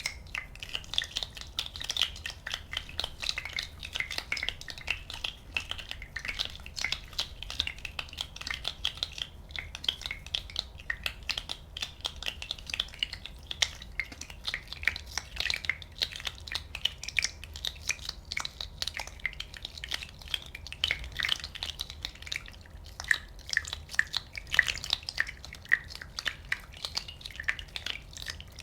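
Many small bubbles popping in quick, irregular succession: a dense crackle of tiny pops and clicks with bright little pings, going on without a break.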